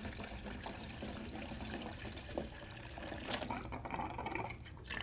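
Hot rinse water running steadily from a jockey box faucet into a pitcher, pushing the PBW cleaner out of the coil, with a couple of light clicks in the second half.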